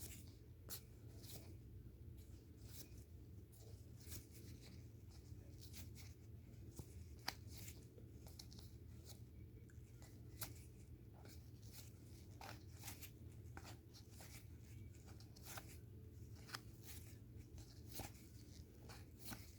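Faint, irregular clicks and rustles of trading cards being flipped through by hand, one card slid behind another, over a steady low hum.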